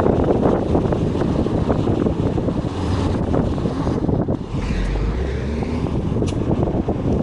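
A bus on the move: a steady low rumble of engine and road noise, with wind buffeting the microphone.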